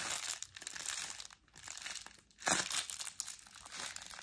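Packaging wrap crinkling in irregular bursts as a wrapped photography umbrella is handled and unwrapped, with short quiet gaps between; the loudest rustle comes about two and a half seconds in.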